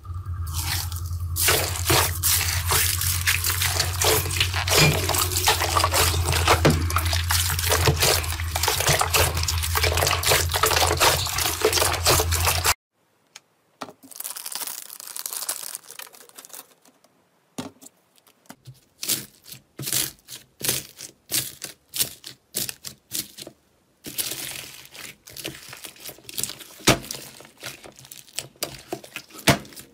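Hands squishing slime packed with purple beads: a dense, wet crackling and squelching over a steady low hum. After a sudden cut about halfway through come scattered sharp crinkles and clicks of a foil snack packet being handled and opened, and near the end green slime with foam beads is squeezed, giving sticky pops and crackles.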